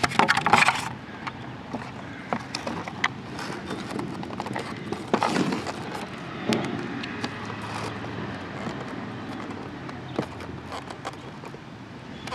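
Handling noise: a loud rustling bump about half a second in, then scattered light clicks and taps of hands working on the plastic hull and hatch of an RC boat.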